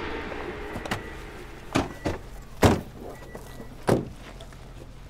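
A vehicle's running noise dies away, then car doors thunk shut several times, the loudest about two and a half seconds in.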